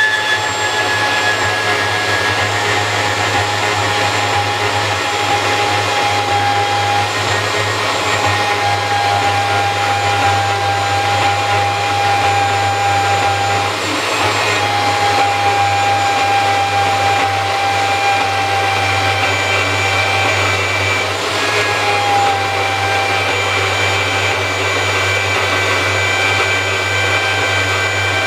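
Makita portable band saw running steadily under load, its blade cutting through steel blade stock. A low motor hum sits under a high whine whose pitch wavers slightly and dips briefly a couple of times.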